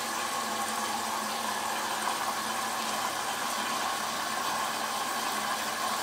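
Hoover DYN 8144 DX front-loading washing machine running a program: a steady, even whirring hum that holds at one level throughout. The machine is working normally, its E03 fault cleared.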